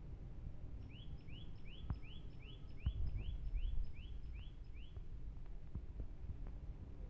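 A bird repeats a short rising chirp about eleven times in quick succession, roughly three a second, for about four seconds, then stops. Underneath are a low outdoor rumble and a few faint clicks of a kitten crunching dry kibble.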